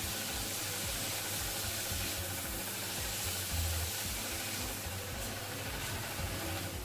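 A fine, high-pressure jet of water from a hose nozzle spraying steadily onto freshly cast gold jewellery held in the hand, washing it clean after casting: a steady hiss.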